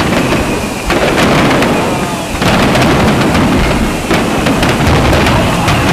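Aerial firework shells bursting one after another in a dense barrage: booms merging into continuous crackling, with fresh surges of bursts about a second in, about two and a half seconds in and about four seconds in.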